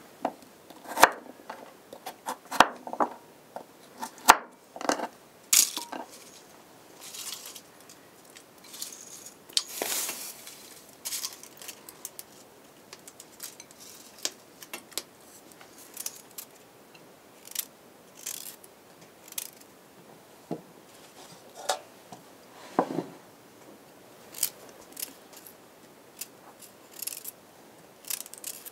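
Kitchen work sounds: scattered sharp clinks and knocks of a knife, glass bowl, wooden board and metal pot, with a longer scrape about ten seconds in. Near the end a knife shaves the skin off a beet.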